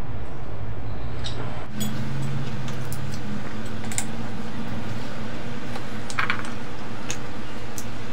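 Scattered small clicks and taps of seafood shells and a spoon being handled while eating, over a steady low hum.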